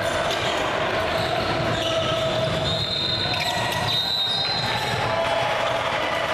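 Basketball game on a hardwood gym court: a ball bouncing and players' sneakers squeaking on the floor, a couple of high squeaks about midway, over the steady hum of the hall and faint voices.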